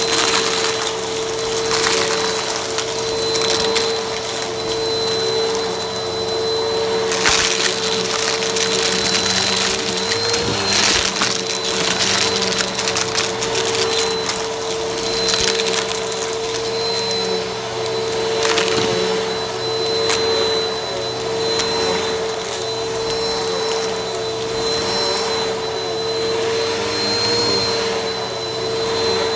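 Vacuum cleaner running with a steady motor whine, with repeated surges of rushing noise as it is worked back and forth.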